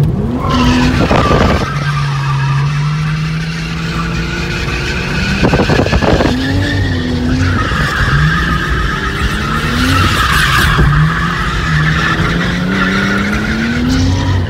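A31 Nissan Cefiro's engine heard from inside the cabin while drifting, revving up and falling back again and again as the tyres skid and squeal, with a long tyre squeal through the middle.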